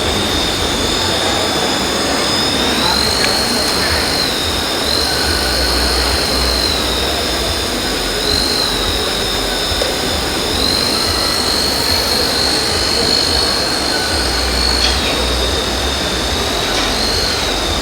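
High-pitched electric whine from a radio-controlled construction model's motor, over a steady noisy running sound. The whine steps up in pitch and back down several times as the model is worked.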